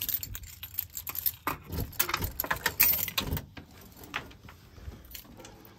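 A bunch of keys jangling on a key ring while a key is worked into a front-door deadbolt to lock it. The jingling and clicking is dense for about three and a half seconds, then thins to a few lighter clicks.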